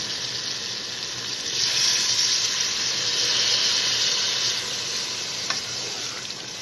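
Water poured into a hot pan of beef koftas frying in oil, hissing and sizzling as it goes in for the gravy. The hiss swells about a second and a half in and eases off about three seconds later, with a light tap near the end.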